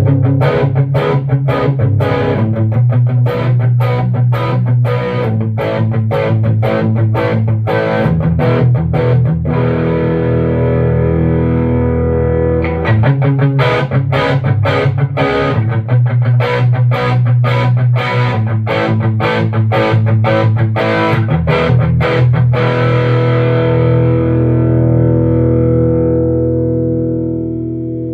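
Electric guitar played through a 15-watt Alien Monster tube amp with a distorted tone, in a fast picked riff of repeated notes and chords. Over the last few seconds a chord is left to ring and slowly fades.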